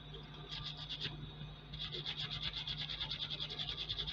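Brisk hand scrubbing of a bare diecast metal casting with a bristle brush. A few short strokes come first, then fast, even back-and-forth strokes at about eight a second from just under two seconds in, cleaning off residue after paint stripping.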